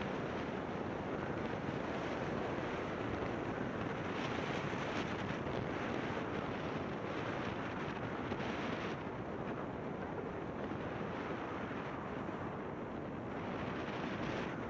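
Wind rushing over the microphone of a snowkiter moving on skis, with the hiss of the skis sliding over snow. The hiss is steady, stronger in the first half, eases after about nine seconds and picks up again near the end.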